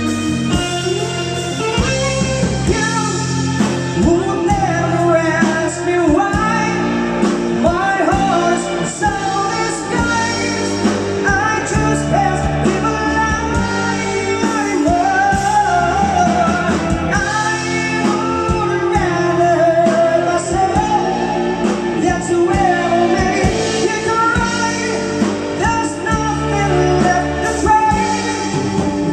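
Live band playing a song: a singer's melody over guitar, bass and drums.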